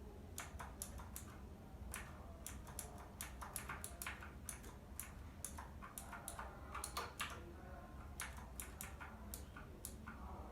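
Keys of a mechanical keyboard clicking as they are pressed one after another at an uneven pace, a few clicks a second, stepping through its RGB lighting modes.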